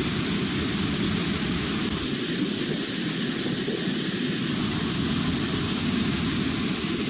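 Waterfall: water falling and rushing in a steady, unbroken roar.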